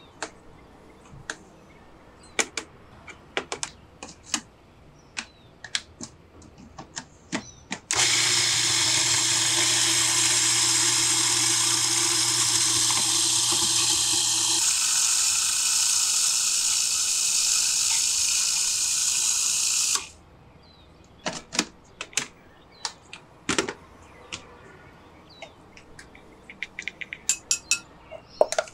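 Food processor running for about twelve seconds in the middle, a loud steady whirr that changes tone about halfway and cuts off suddenly. Before and after it come scattered clicks and knocks of a spatula scraping and tapping riced cauliflower in the plastic processor bowl.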